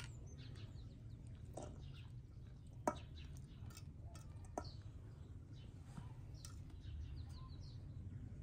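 Faint bird chirps over a low steady hum, with a few sharp isolated clicks. The loudest click comes about three seconds in.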